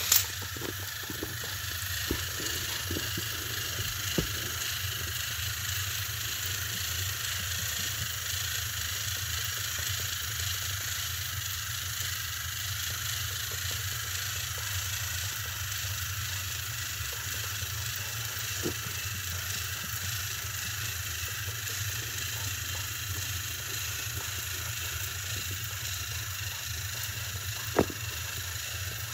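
Two battery-powered toy train engines' small electric motors whirring steadily as they push against each other under load, with a few brief clicks.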